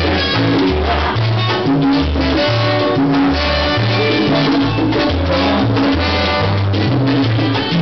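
Live salsa band playing, with a rhythmic bass line, percussion and horns.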